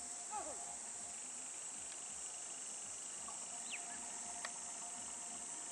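Steady high-pitched insect drone from the jungle, with a few short bird calls: a falling call just after the start and a quick chirp a little past halfway, then a single sharp tick.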